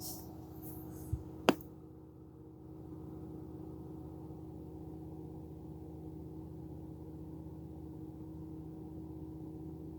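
A steady low hum with a fixed tone, like a distant machine running, with two sharp clicks a little over a second in.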